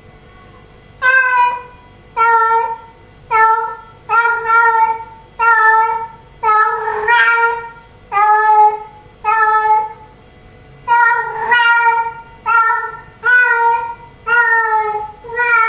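Female cat in heat calling for a tom: a run of loud, drawn-out meows, about one a second, with a short pause about ten seconds in.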